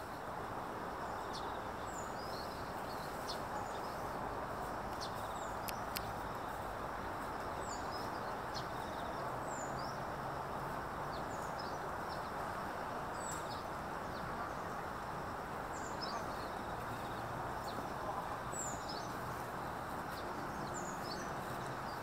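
Small songbirds giving short, high chirps every second or so over a steady low background rush, with a few faint clicks about five and six seconds in.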